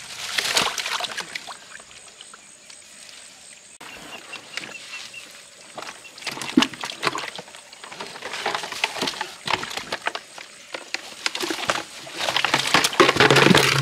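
Water splashing and sloshing with irregular knocks, as live fish are handled in a container of water; the splashing grows busier and louder near the end.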